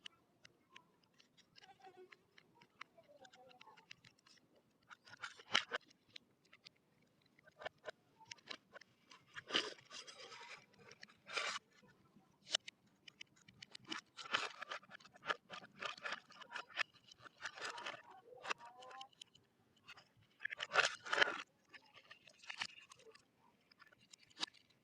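Hands handling a children's toy car and its box and plastic packaging: irregular crinkling, scraping and sharp clicks, in clusters with short pauses between.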